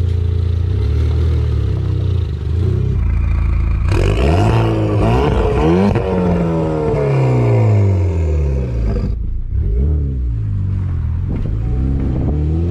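Turbocharged Chevrolet Cobalt SS four-cylinder running through an exhaust fitted with an electric cutout. It runs steadily at first, then from about four seconds in it revs up and down repeatedly. The sound changes abruptly near nine seconds, and more rising and falling revs follow.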